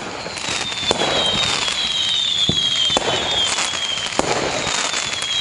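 Firework sound effect: a fusillade of bangs and crackling with high whistles that slide down in pitch. It swells up over the first second.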